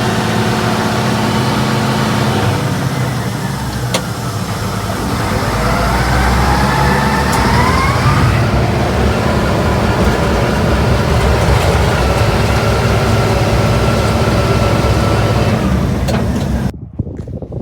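A vehicle engine running steadily and loud, with a whine that rises in pitch a few seconds in. It cuts off abruptly near the end, leaving a quieter, wind-like sound.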